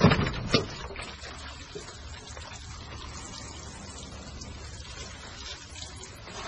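Two sharp knocks at the start, then water running in a steady rush as plants are watered.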